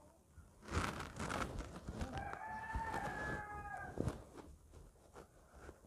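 A rooster crows once, about two seconds in, a single call lasting over a second. A few short knocks and rustles come before and after it.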